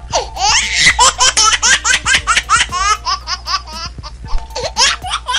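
A young child laughing in a long run of quick, high-pitched giggles, about five a second.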